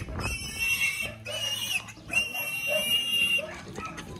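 A feeder pig squealing while carried upside down by its hind legs: two long, high, steady squeals of over a second each, with a short break between them.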